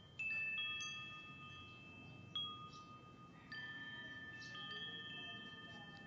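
Metal-tube wind chime ringing: the wooden striker knocks the tubes several times, each strike leaving clear high tones that hold and overlap. The loudest strikes come right at the start and about two and a half seconds in.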